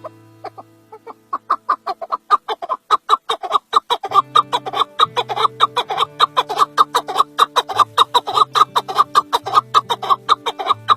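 Male chukar partridge calling: a rapid series of short clucking notes, several a second, starting about a second in and running on steadily. Background music with sustained low notes plays underneath.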